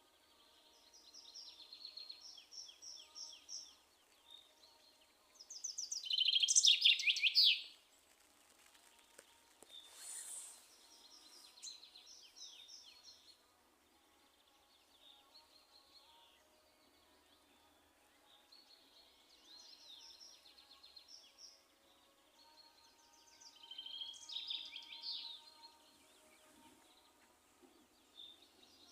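Songbirds singing in spring, several phrases of quick repeated notes with pauses between them. The loudest is a fast run of notes falling in pitch about six seconds in, and another strong phrase comes near the end.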